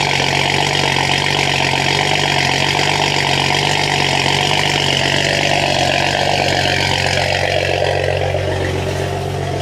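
BMW E90's N55 turbocharged inline-six idling steadily through a newly fitted VRSF catless downpipe, its exhaust note louder than stock.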